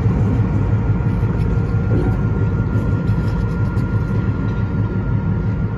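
Diesel switcher locomotives running as they pull away along the track: a steady low engine rumble with a faint high whine.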